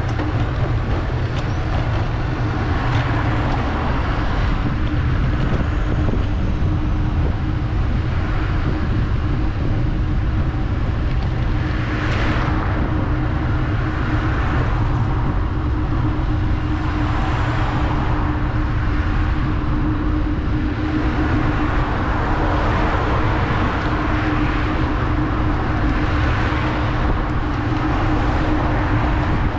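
City street and traffic noise heard on the move: a loud steady low rumble under a steady hum, with swells of passing vehicle noise that rise and fade every few seconds.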